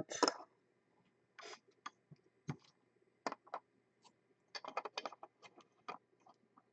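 Faint, scattered clicks and taps of trading cards being handled and slotted into a card stand, with a quick run of taps a little past the middle.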